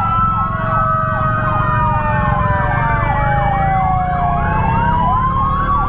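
Several ambulance sirens sounding at once: a fast yelp repeating about three times a second over slower rising and falling wails, with a low engine and road rumble beneath.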